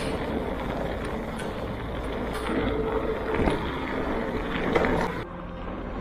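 Wind rushing over the microphone and an e-mountain bike's tyres rolling fast over a gravel track at about 35 km/h, with scattered knocks and rattles from bumps. The sound drops and changes abruptly about five seconds in.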